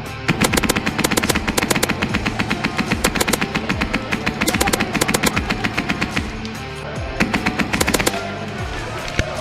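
Airsoft guns firing on full auto: a long stretch of rapid fire lasting about six seconds, then a pause and a shorter burst of about a second.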